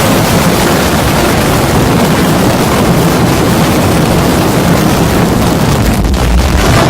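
Extremely loud, heavily distorted meme-style sound effect: a dense, harsh noise wash that covers every pitch with no clear tone, with a deep rumble swelling about six seconds in.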